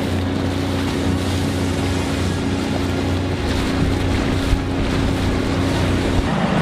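A small RIB's 30 hp outboard motor running at a steady low speed, with wind on the microphone and water rushing along the hull. The engine note cuts off abruptly shortly before the end.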